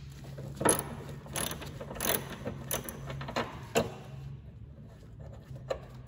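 Hand ratchet with a long 10 mm socket clicking in short spells, about one every 0.7 s, as a bolt on the trunk-lid bracket is backed out; the clicking stops about four seconds in, with one more click near the end. A steady low hum runs underneath.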